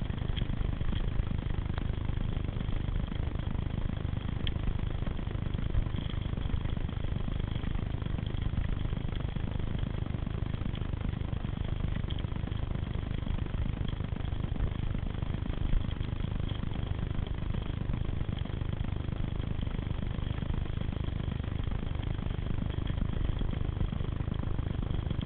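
Steady low rumble of wind buffeting the microphone, mixed with the rolling noise of bicycles on a dirt forest trail.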